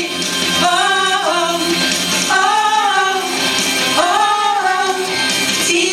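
Music: a woman singing sustained melodic phrases over instrumental accompaniment.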